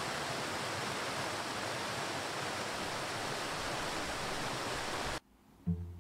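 Steady rush of a waterfall: an even, pitchless hiss of falling water at a constant level that cuts off suddenly about five seconds in. Near the end, cello music begins with a few plucked and bowed notes.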